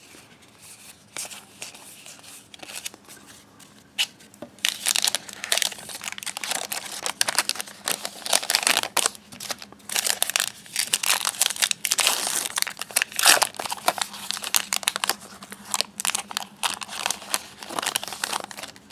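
Trading card pack wrapper being torn open and crinkled by hand: quick, irregular crackles, sparse at first and busy from about four seconds in.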